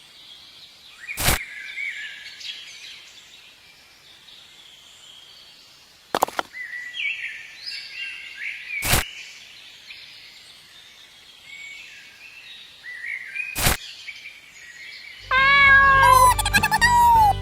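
Birds chirping, with a few sharp clicks. Near the end a loud meow-like cry with a heavy bass beat cuts in.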